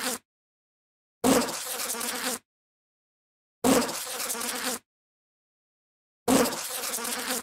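Bee buzzing in short bursts of about a second each, cut apart by dead silence, like a looped sound effect. The end of one burst falls at the very start, then three more bursts follow about two and a half seconds apart. Each burst starts loudest, then holds a steady buzz.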